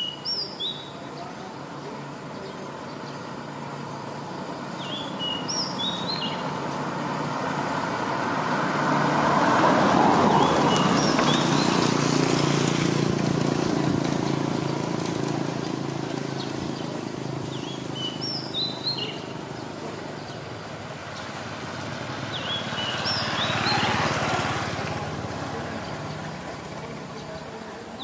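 A small songbird repeats a short, high chirping phrase about every five seconds. Under it, a broad rushing noise swells twice, loudest about ten seconds in and again around twenty-four seconds.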